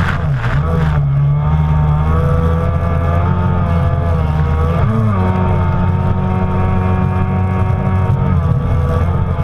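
Stand-up Kawasaki Jet Ski engine running hard at speed across the water, its pitch wavering slightly, with a brief dip and rise about five seconds in. Spray splashes against the hull near the start.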